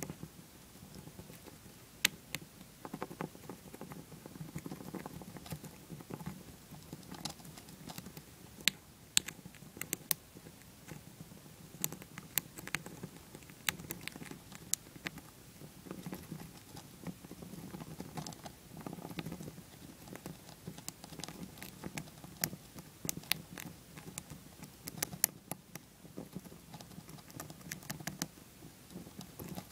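Dwarf hamster gnawing a shelled peanut: fast, irregular crisp clicks and crunches, sometimes in quick clusters, over a soft low rustle.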